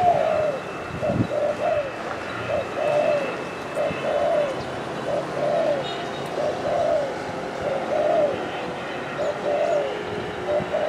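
Spotted dove cooing: a steady series of short coos, roughly one a second, some in quick pairs. One dull knock about a second in.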